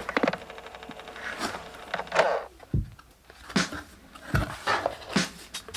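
Unboxing noises: the keyboard's box and packaging handled, with rustling and scraping between several sharp knocks and a couple of dull thumps.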